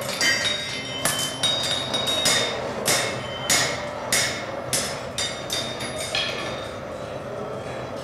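Blacksmith's hammer striking a hot iron horseshoe on an anvil, about one or two blows a second, each with a bright metallic ring, over a steady background hum. The blows thin out near the end as the shoe is finished.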